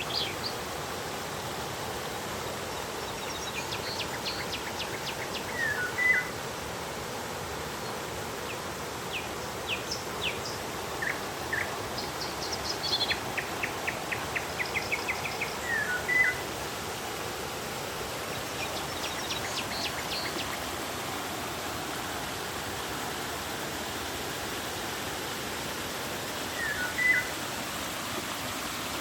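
Steady rush of flowing river water, with birds calling over it: several quick ticking trills and short sharp chirps that come back every few seconds, the chirps near 6, 16 and 27 seconds being the loudest.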